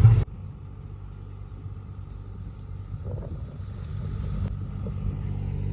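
A loud engine cuts off abruptly just after the start. Then a vehicle engine runs with a steady low drone that slowly grows louder.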